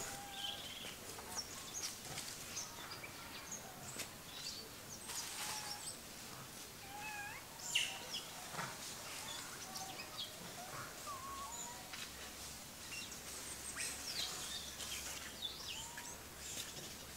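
Many short bird chirps and whistles at varied pitches, scattered and overlapping throughout, over a faint outdoor hiss. A single sharp click stands out about eight seconds in.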